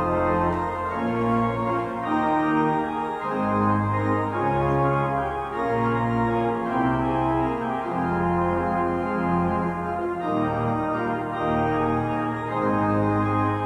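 Church organ playing slow, held chords over a bass line that moves to a new note about every second.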